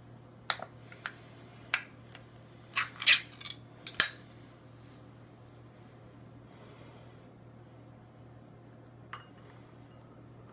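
A small cat food cup being handled and opened by hand: a run of sharp clicks and crackles over the first four seconds, then a single light click near the end.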